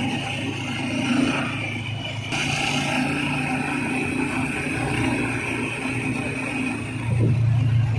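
Motorcycle engine of a tricycle running while riding along a road, with road and wind noise; it grows louder near the end.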